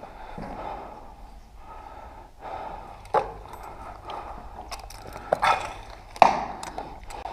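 Several sharp clicks and knocks over a low rustling background, the loudest about six seconds in, along with short noisy puffs that sound like breaths.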